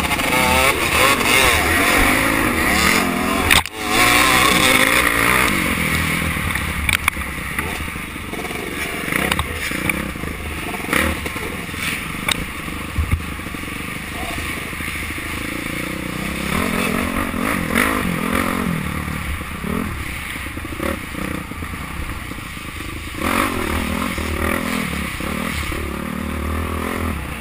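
Dirt bike engine running and revving up and down with the throttle, heard from a camera mounted on the bike's handlebars. The engine note cuts out briefly about four seconds in.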